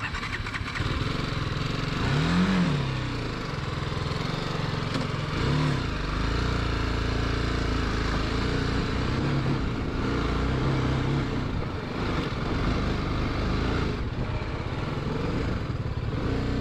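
Single-cylinder adventure motorcycle engine revving up and down under throttle on a steep off-road climb, with the engine note swelling and dropping several times.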